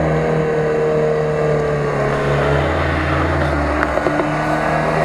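Off-road 4x4 engine running steadily under load while pulling a stuck vehicle out on a taut cable, with a thin whine that slowly falls in pitch over it.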